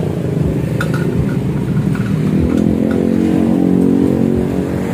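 Kawasaki ZX-25R's 250 cc inline-four running through a custom header and an Akrapovic carbon slip-on silencer. The revs climb about two seconds in and then hold.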